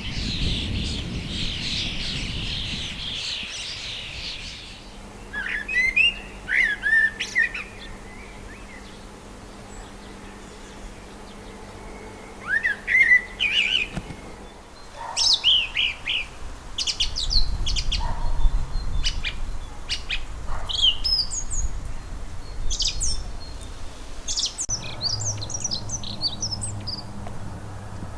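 Songbirds singing and calling in a series of short clips of different species. A dense high chatter comes first, then separate whistled phrases, then rapid sharp high chirps in the later part.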